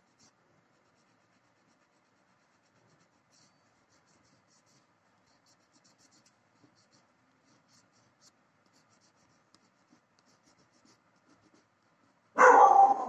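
Wax crayon scratching faintly on paper in short drawing strokes. Near the end a sudden loud sound cuts in over it.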